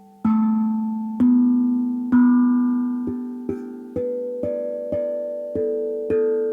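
AQUADRUM steel tongue drum tuned to G major, single notes struck one after another, about ten of them, each ringing on and slowly fading under the next. The notes come about a second apart at first, then about twice as fast from the middle on.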